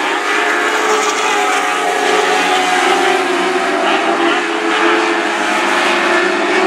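Lightning sprint cars racing on a dirt oval: several engines running at high revs together in a steady, loud whine.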